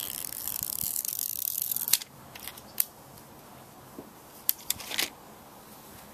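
A scraping sound for about two seconds, then several sharp clicks and taps of small hard objects being handled.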